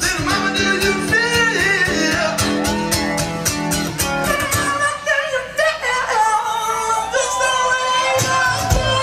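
Live band music with a singing voice and guitar. The low bass notes drop out about five seconds in and come back near the end.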